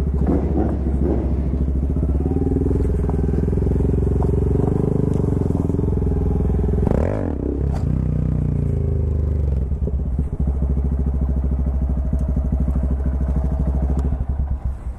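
Sport bike engine running steadily at low revs, with a brief rise and fall in pitch about seven seconds in.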